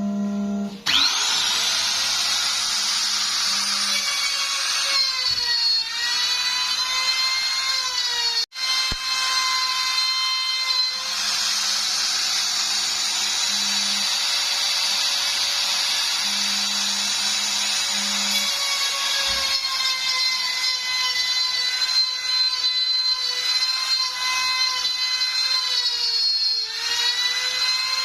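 CNC router spindle cutting 4 mm plywood: a high, steady whine that starts about a second in with a quick rise in pitch. The pitch dips briefly a few times during the cut.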